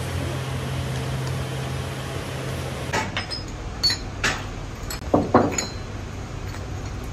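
A steady low hum and rush from a furnace fire, which stops suddenly. Then come a series of sharp clinks and clanks of used metal engine pistons knocking together as they are picked out of a scrap pile, the loudest about five seconds in.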